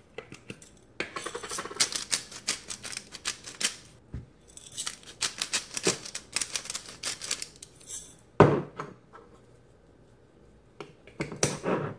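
Hand-twisted salt and pepper grinders grinding over raw pork chops: two long runs of rapid ratcheting clicks, then a single knock and a short burst of grinding near the end.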